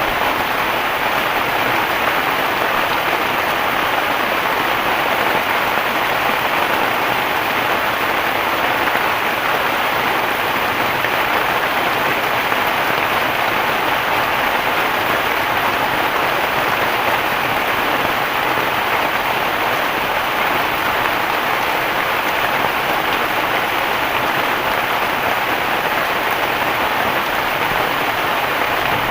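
Heavy rain falling steadily, an even hiss of rain on surfaces with no let-up.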